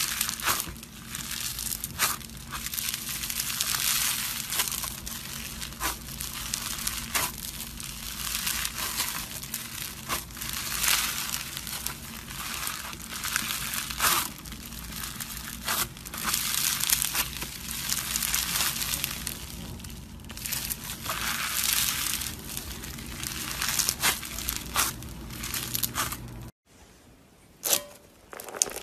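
Foam-bead slime (floam) squeezed and kneaded by hand, crackling and popping continuously as the beads press together, in swells every second or two over a steady low hum. Near the end the sound cuts off abruptly and a different slime clip starts, quieter and with scattered crackles.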